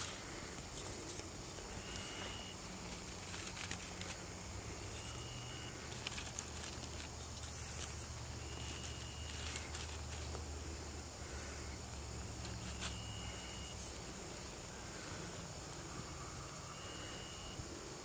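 Small wood fire crackling in a stainless steel twig stove, with light clicks as twigs are dropped in. A bird's short whistled note repeats every three to four seconds. A low hum sits under the middle stretch.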